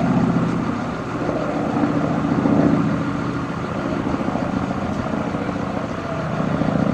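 Small single-engine propeller airplane flying overhead, its piston engine droning steadily, swelling in level about midway and again near the end.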